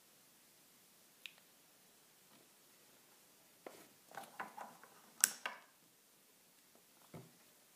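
Handling noise from a hand holding a phone: a single light click about a second in, a quick run of clicks and taps in the middle with one sharper click, and a duller knock near the end.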